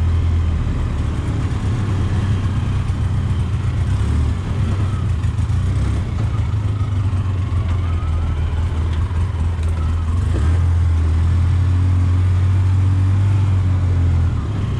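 Side-by-side utility vehicle's engine running as it drives, a steady low drone that eases off about four seconds in and picks up again about ten seconds in.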